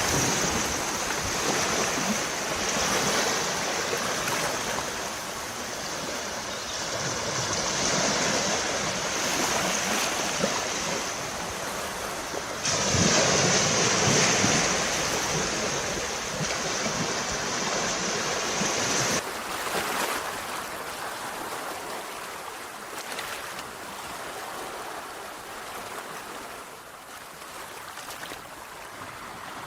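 Sea waves washing onto a shore in repeated swells. The loudest wave breaks about a third of the way in, and the surf grows quieter over the last part.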